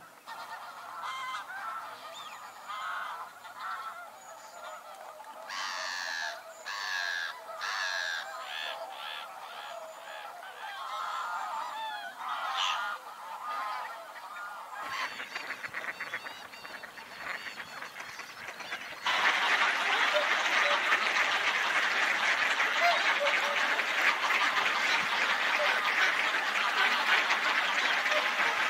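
Scattered wildfowl calls at first. About two-thirds in, a much louder, dense chorus of honking begins from a gathered flock of whooper swans and ducks.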